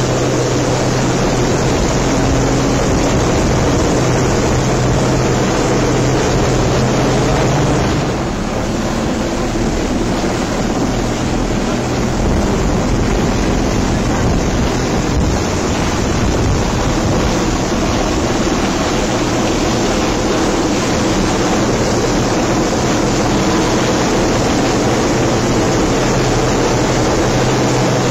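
Loud wind and helicopter rotor downwash buffeting the microphone, with water rushing past an RNLI inshore lifeboat as an RAF Sea King hovers overhead. A steady low engine hum drops out about eight seconds in and returns near the end.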